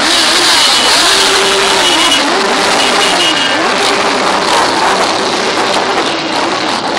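A procession of motorcycles, sport bikes and V-twin cruisers, riding past one after another. Their engines overlap, rising and falling in pitch as each bike accelerates and goes by.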